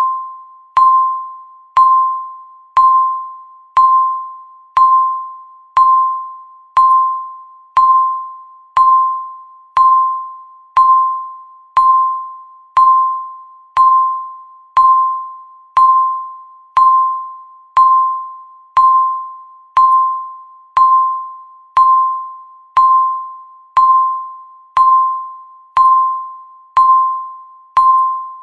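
A countdown timer's electronic beep, once every second: a short single-pitched tone that starts sharply and fades quickly, repeating evenly.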